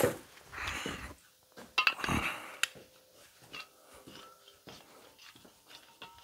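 Clatter and knocks of tools and objects being handled and moved, with the loudest clatter about two seconds in, then a few faint ticks, as a gas torch is fetched.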